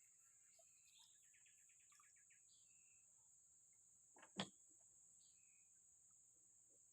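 Faint outdoor ambience: a steady high-pitched insect drone with scattered short bird chirps and a quick trill early on. One sharp click about four and a half seconds in.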